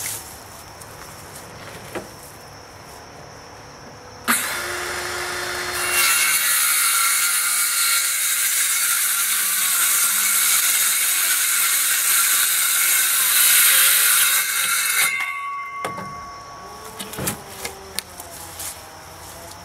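Handheld circular saw started about four seconds in, then cutting through a plywood board for about nine seconds before stopping abruptly and spinning down. A few knocks follow as the cut board is handled near the end.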